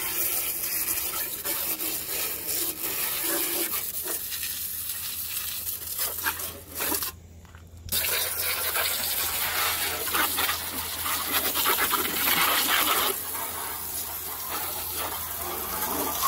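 Water spraying from a hand-held hose nozzle, a steady hiss as it rinses a car's engine bay and front end. The spray stops for about a second around seven seconds in, then runs on again.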